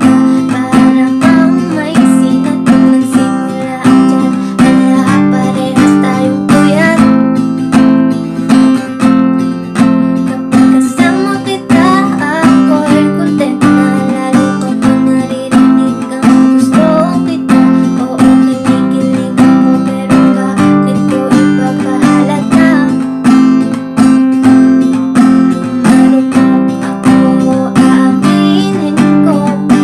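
Background song led by an acoustic guitar strumming chords in a steady rhythm.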